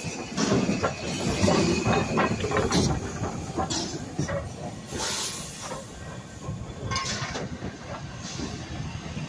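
LMS Ivatt Class 2MT 2-6-2T tank locomotive 41298 drifting slowly past as it arrives at a station, with short hisses of steam, then its carriages rolling by with clicks from the rail joints. It is loudest in the first three seconds, as the engine passes close.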